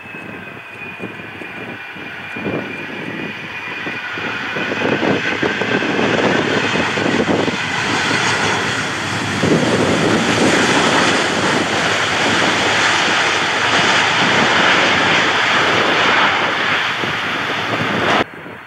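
Jet airliner passing close by: a high engine whine gliding down in pitch at first, then the engine noise building to its loudest before cutting off suddenly near the end.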